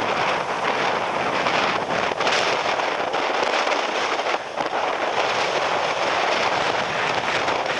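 Typhoon gale and driving rain, a steady loud rushing noise, with wind buffeting the microphone.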